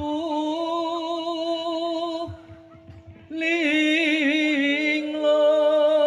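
A song with a singer holding long notes with vibrato, played loud through a large outdoor PA sound system of line-array speakers and bass cabinets. About two seconds in it drops away briefly, then comes back louder.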